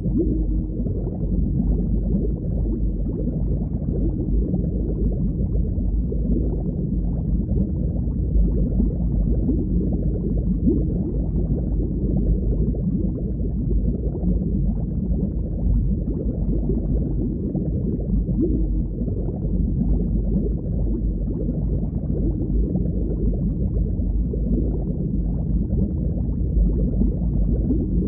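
Underwater ambience: a steady, low, muffled rumble of moving water with nothing in the high range.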